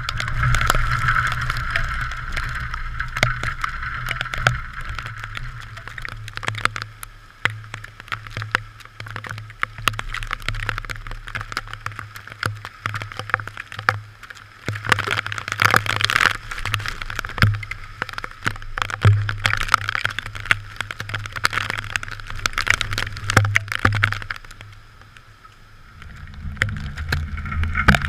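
Typhoon wind and rain hitting a GoPro: a gusting low rumble on the microphone with a dense patter of sharp rain ticks. It eases briefly near the end, then picks up again.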